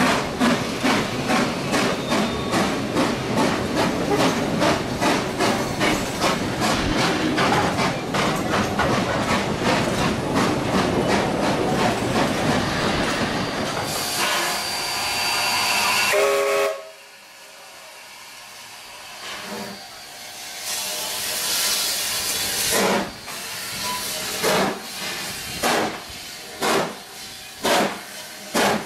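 AC16-class 2-8-2 steam locomotive 221A. First a train runs past at speed with rapid, even beating and rail noise, then a loud steam hiss that cuts off abruptly. After a few quieter seconds steam hisses again, and the short-stacked engine's exhaust beats start slowly and quicken as it pulls away.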